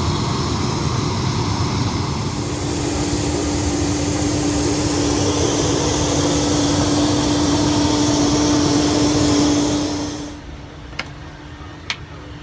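Steady noise of a private jet's engines, with a steady hum underneath, which drops away suddenly about ten seconds in. Two short clicks follow near the end.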